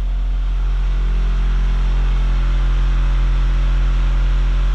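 Competition car-audio subwoofers playing one steady, very loud deep bass tone for about four and a half seconds, then cutting off suddenly: a sound-pressure-level (dB drag) burp run, metered at about 156 dB.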